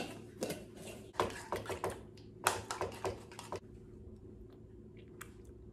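A metal spoon stirring sour cream in a ceramic bowl: two runs of quick clinks and scrapes against the bowl that stop about three and a half seconds in. A few faint ticks follow.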